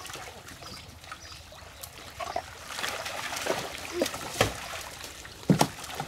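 Water dripping and splashing from a large fishing net being hauled and lifted through a muddy pond, with a couple of sharper splashes in the second half.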